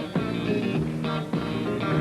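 Country band playing the instrumental intro to a duet, with guitar to the fore and notes struck about every half second.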